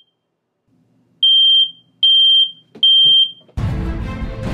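Ceiling smoke alarm sounding its three-beep evacuation pattern: a pause, then three loud high-pitched beeps, signalling smoke or fire. Loud music cuts in suddenly near the end.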